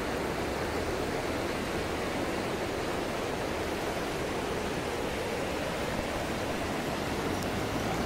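Beas River water flowing steadily past a stony bank.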